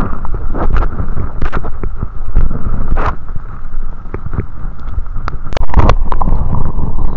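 Muffled underwater rumble of moving water picked up by an action camera held beneath the surface, with irregular clicks and knocks from the housing being handled.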